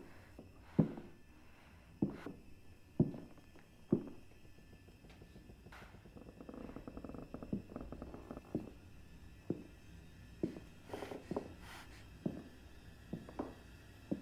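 A series of dull, muffled thuds, roughly one a second at first, then softer and more irregular in the second half, each dying away quickly.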